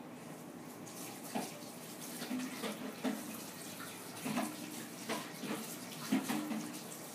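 Pancake batter being poured from a plastic container into a plastic pancake pan, with irregular liquid splashing.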